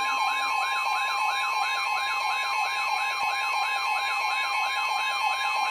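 Electronic siren yelping in fast, even up-and-down sweeps, about four a second, over a steady high alert tone, sounded as an emergency-alert signal for a flood warning.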